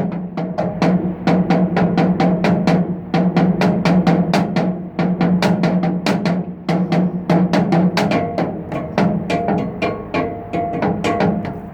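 Two wooden sticks drumming on the metal structure of a footbridge, several sharp strikes a second in a loose, uneven rhythm. The metal rings on between strikes with a steady low tone.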